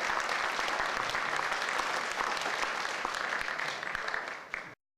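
Concert audience applauding, tapering slightly before cutting off abruptly near the end.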